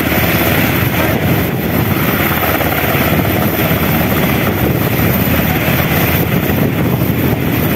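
Sikorsky UH-60L Black Hawk helicopter running close by, its four-blade main rotor and twin General Electric T700 turboshaft engines giving a loud, steady rotor thrum and turbine noise.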